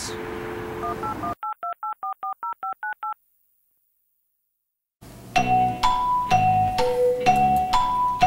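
A telephone dial tone, then a quick string of about a dozen touch-tone keypad beeps dialing a number. After about two seconds of dead silence, music starts with repeating marimba-like notes over a bass beat.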